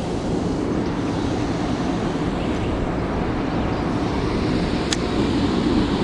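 Steady outdoor rushing noise, even and unbroken, with a single sharp click about five seconds in.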